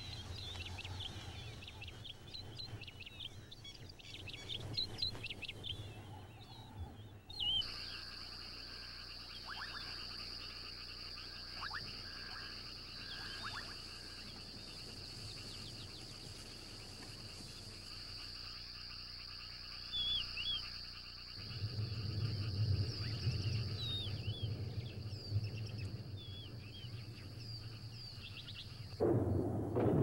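Natural outdoor ambience of birds chirping. A steady high-pitched drone comes in suddenly about a quarter of the way in. A low rumble begins about two-thirds through and grows louder near the end.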